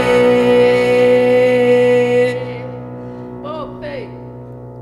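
The final held note of a French chanson, voice over digital piano, stopping about two seconds in and fading out, followed by two short vocal sounds.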